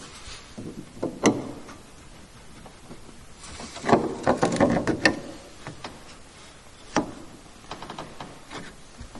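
White PVC drain pipe and fittings handled and dry-fitted together by hand: sharp plastic clicks and knocks, with a close cluster of rattling knocks about four to five seconds in and single clicks about a second in and near seven seconds.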